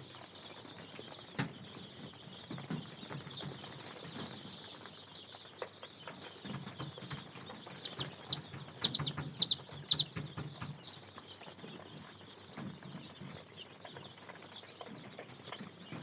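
A group of Sonali chicken chicks peeping, with many short high cheeps that come thickest about halfway through, over some low rustling.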